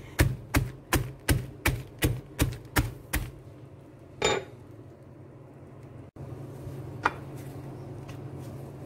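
Lotus Biscoff biscuits in a zip-top plastic bag being pounded to crumbs on a stone countertop: sharp, even thuds about three a second, stopping a little after three seconds in, with one more knock about a second later. A steady low hum follows.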